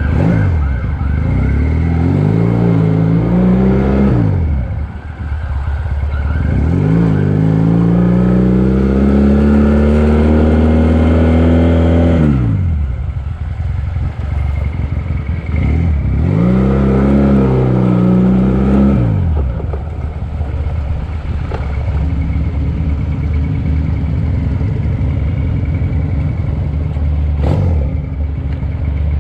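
Motorcycle engine revving up under acceleration three times, each time rising in pitch for a few seconds and then easing off, over a steady low road and wind rumble.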